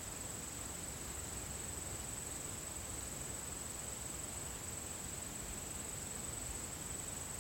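Insects trilling outdoors: one steady high-pitched drone that never breaks, over a faint low rumble.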